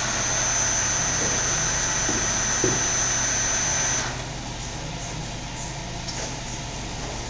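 Clausing Metosa variable-speed engine lathe running, with a steady high-pitched whine over the machine noise. About four seconds in the whine stops and the lathe runs on more quietly.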